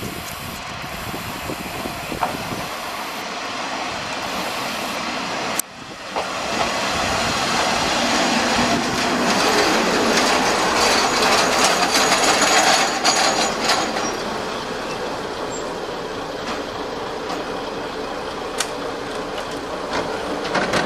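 Kominato Railway KiHa 200 diesel railcar running into a small station: engine and wheels on the rails. It grows louder as the cars pass close alongside and then settles as the train slows to a stop.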